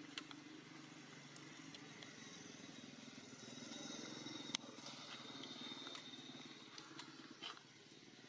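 Faint, steady hum of a distant motorbike engine that swells and fades as it passes, with a few sharp crackles of dry leaves, the loudest about halfway through.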